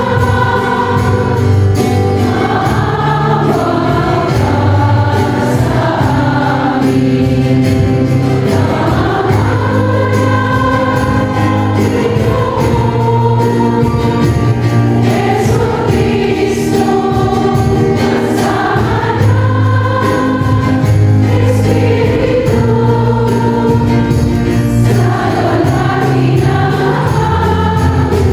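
Choral worship music: a choir singing slow, held chords over a low sustained bass.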